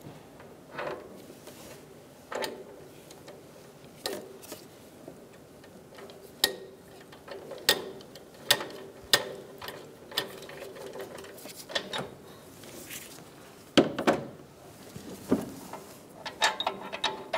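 A ratchet on a 22 mm oxygen-sensor socket clicking in irregular strokes as it loosens an oxygen sensor threaded into the exhaust manifold, with a quick run of clicks near the end.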